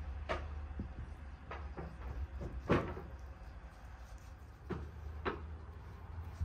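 About six separate short knocks and clunks, as of objects being handled and set down, the loudest a little before halfway through, over a low steady hum.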